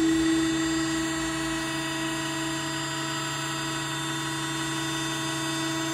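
Hydraulic lift pump and motor of a Berto Italia VMI AR160 overturnable spiral mixer running with a steady hum, raising the mixer so it can be tilted out.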